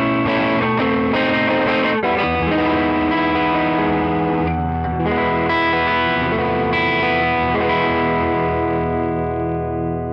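Gibson '58 Historic Les Paul electric guitar played through a Tone King Imperial MK2 amp on a crunchy, lightly overdriven tone, ringing chords and notes. A final chord is left to sustain and fades slowly near the end.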